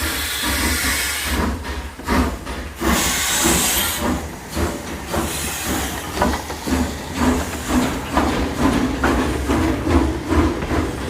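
Steam locomotive pulling away, its exhaust chuffing in a steady run of short beats over a low rumble. Two bursts of steam hiss, one at the start and another about three seconds in.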